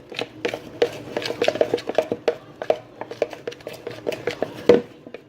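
A spoon clinking and tapping against a bowl as a thick slime mixture is stirred, in quick irregular strikes with short ringing, and one louder knock near the end.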